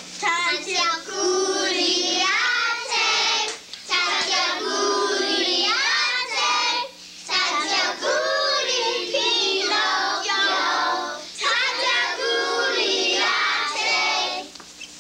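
A group of children singing together, in phrases with short breaks between them.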